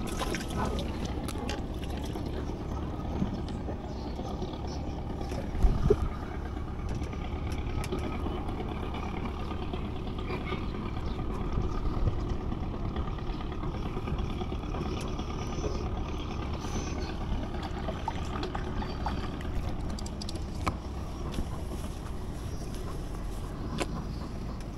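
Steady low drone of a boat motor running, with two quick knocks about six seconds in.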